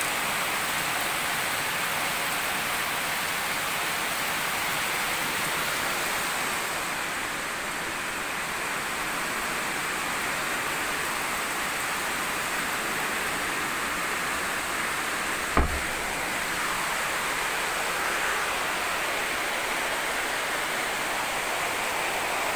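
Heavy rain pouring down in a steady, even hiss. A single thump comes about sixteen seconds in.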